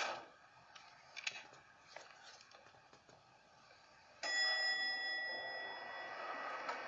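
A sharp knock, a few faint clicks, then about four seconds in a single bell-like chime that starts suddenly and rings on, fading slowly.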